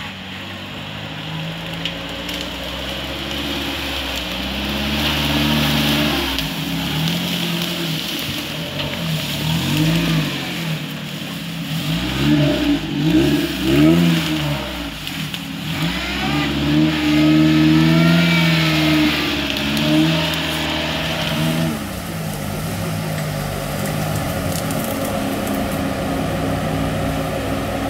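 Off-road UAZ 4x4's engine revving up and down again and again as it crawls through mud, settling into a steadier run about three quarters of the way through.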